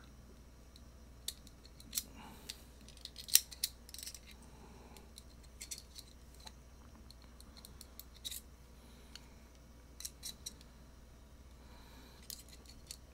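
Small precision screwdrivers clicking and scraping against a pistol magazine's follower and body as the follower is tilted free of its captured spring. The sound is faint, irregular metallic clicks, the loudest a few seconds in.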